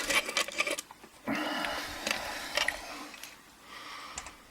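Handling noise of a lock cylinder and tools at a bench: a few light clicks and taps, then about a second in a scraping, sliding sound that fades away over the next few seconds.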